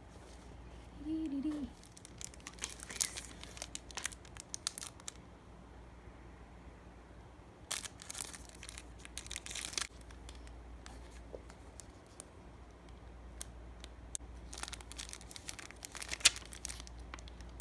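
Packaging being torn open and crinkled by hand, in three spells of irregular ripping and rustling with quieter handling between them.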